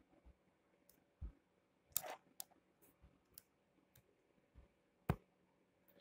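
A handful of faint, sharp, irregular clicks over quiet room tone with a low steady hum; the loudest click comes about five seconds in.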